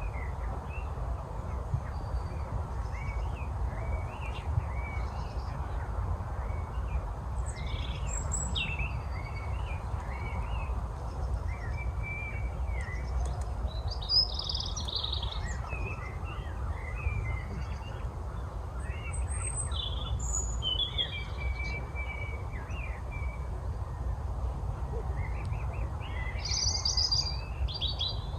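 Several songbirds chirping and singing in woodland, short calls and trills overlapping throughout, with louder bursts of song about halfway through and near the end. A steady low rumble runs underneath.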